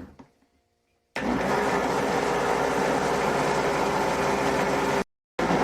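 Countertop blender running steadily at full speed, mixing a flour, egg, milk and oil batter. It starts about a second in and cuts off abruptly near the end, then starts again at once.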